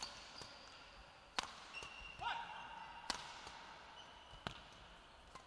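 Badminton rally: four sharp racket strikes on the shuttlecock, about one and a half seconds apart, with a brief squeak of court shoes on the floor about two seconds in.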